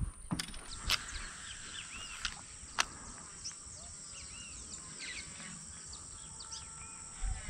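Small birds chirping: many short rising and falling calls. Three sharp clicks come in the first three seconds.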